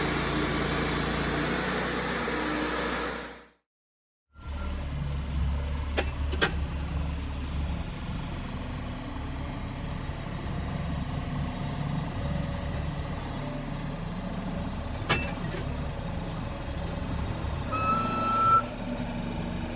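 A loud machine runs and fades out about three and a half seconds in, cut off by an edit. After a brief silence an engine runs steadily at a lower level with a deep rumble, a few sharp knocks, and a short rising whine near the end.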